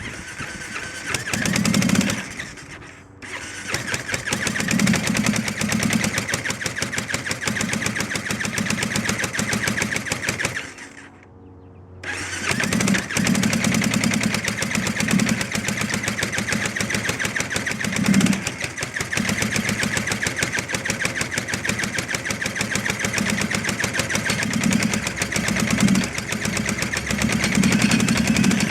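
Kawasaki KLR 685 single-cylinder motorcycle engine being cranked in attempts to start it, a rapid even chugging that stops briefly twice and resumes. The bike has a no-start problem.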